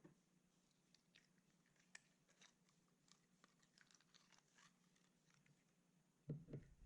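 Clear slime being squished and stretched by hand, making faint sticky clicks and crackles, with a louder dull thump near the end.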